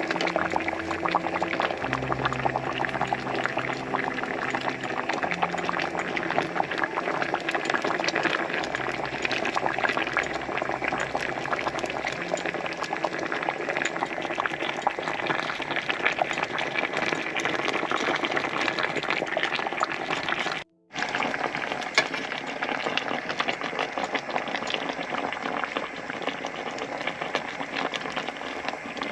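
Pot of braised pomfret in seasoned broth bubbling at a boil: a steady, dense crackle of boiling liquid. Soft background music with low notes plays under it for roughly the first half. The sound cuts out for a moment about 21 seconds in.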